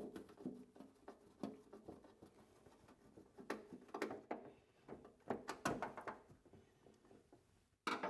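Plastic drain pipe bend being worked loose and pulled out of a steam humidifier's housing by hand: scattered light clicks and knocks of plastic parts.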